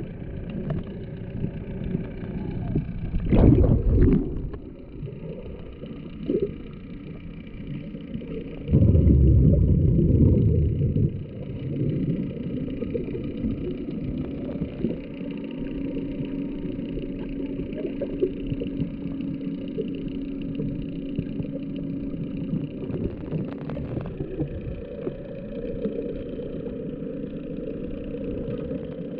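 Boat engines running, heard underwater through a GoPro's waterproof housing: a steady low hum with a held tone. It is broken by a brief loud rush of noise about three and a half seconds in and a longer, louder one from about nine seconds.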